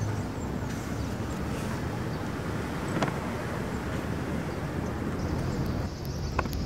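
Steady low outdoor background rumble, with a faint click about three seconds in and another near the end.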